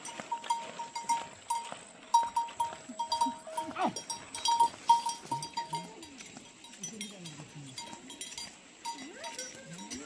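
Metal livestock bells clinking irregularly as the animals move, densest in the first half, with a few short low calls from the animals later on and a steady high-pitched hum behind.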